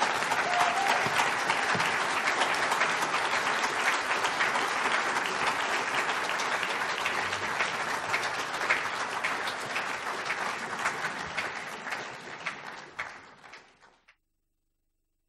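Audience applauding: a long round of clapping that thins out and dies away near the end.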